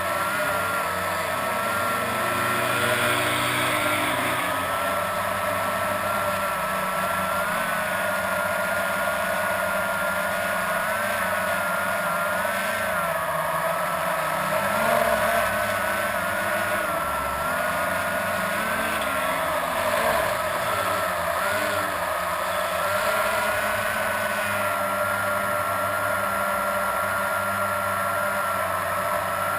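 Blade 350 QX quadcopter's electric motors and propellers humming steadily, the pitch wavering a little. Below it, off-road race vehicle engines rise and fall in pitch as they rev.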